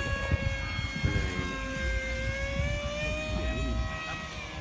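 Model aircraft four-stroke glow engine, an O.S. FS-79 in an RC Cessna 182, running steadily in flight with a buzzing tone whose pitch rises slightly and then drops near the end. Low wind rumble on the microphone underneath.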